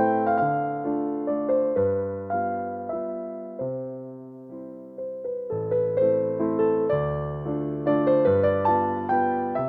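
Background music of gentle electric piano, playing a melody over low bass notes, each note struck and then fading.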